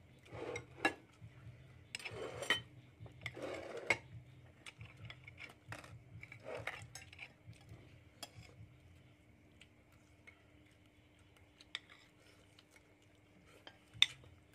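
Metal spoons and forks scraping and clinking against ceramic plates and bowls during a meal, with one sharp clink near the end.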